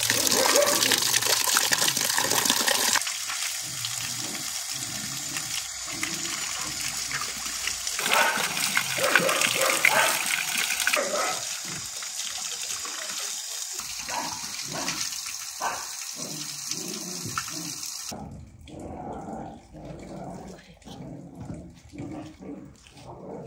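Water pouring from a stone spout and splashing over wet rock, loudest for about the first three seconds and quieter after, with many short sharp sounds over it. Near the end the water gives way to a quieter stretch of short, separate sounds.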